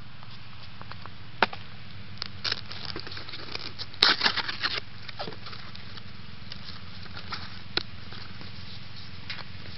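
Handling noise: scattered clicks and crackles, with the loudest cluster about four seconds in as the camera is set down on dry leaf litter, over a steady low hum.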